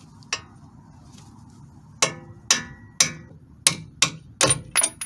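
Hammer striking steel, eight sharp ringing blows: one on its own, then seven in quick succession at about two a second, the kind of hammering used to free a CV axle or knuckle during the swap.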